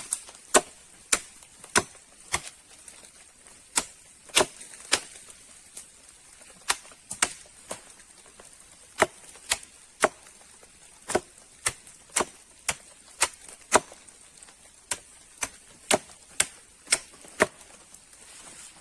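Wood being chopped with a small axe: sharp single strikes about twice a second, in runs broken by short pauses.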